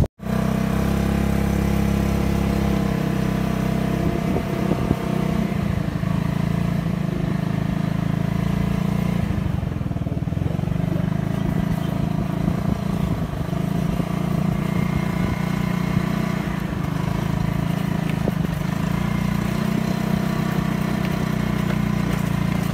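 Motorcycle engine running steadily while the bike is ridden, a low, even drone.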